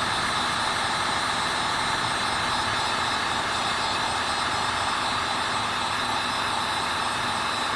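Electric heat gun running: its fan blows a steady rush of hot air with a faint steady hum, heating the tank to soften the sticker's adhesive.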